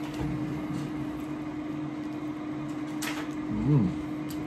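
Steady hum of a Ninja air fryer running on the counter. About three seconds in comes a single short crackle, followed by a brief low 'mm' from the man eating a fried chicken wing.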